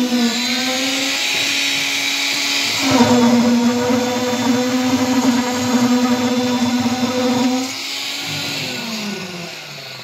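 Electric concrete needle vibrator running with a steady hum and high whine while compacting freshly poured concrete in a column form. It gets louder about three seconds in, then winds down, falling in pitch over the last two seconds.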